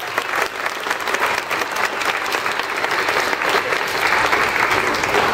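Large audience applauding, a steady dense patter of many hands clapping.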